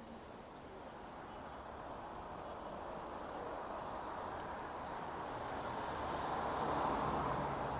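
A car driving along the street, its tyre and engine noise growing steadily louder as it approaches and loudest near the end.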